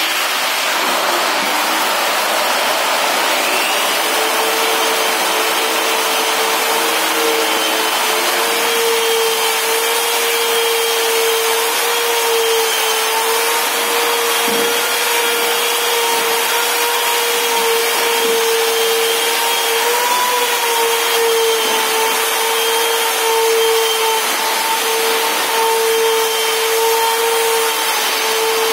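Handheld angle grinder fitted with a buffing pad running at a steady speed, its motor whining at one constant pitch over the hiss of the pad dry-buffing a polished marble wall.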